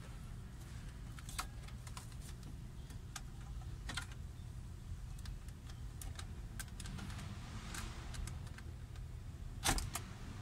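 Scattered plastic clicks and rattles of a car stereo's wiring connectors and metal case as the head unit is pulled from the dashboard and its wiring is handled, with one louder knock near the end. A low steady hum runs underneath.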